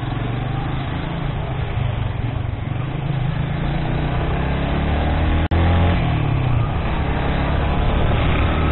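Motorcycle engine running on the move, with wind rushing over the microphone and traffic around it. The sound cuts out for a split second about halfway through, after which the engine rises in pitch as the bike speeds up.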